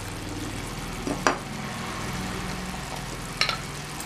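Thick mushroom gravy simmering and sizzling in a pan on the stove, with two sharp clicks, one about a second in and one near the end.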